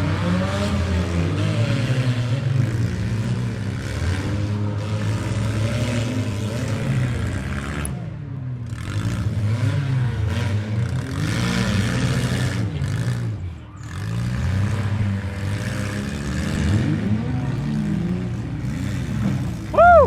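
Several demolition derby minivan and mini truck engines running and revving at once, their pitches repeatedly rising and falling as the cars accelerate and back off.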